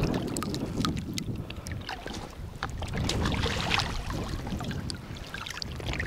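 Shallow seawater splashing and dripping as hands lift and handle a gill net, with many small, sharp splashes throughout.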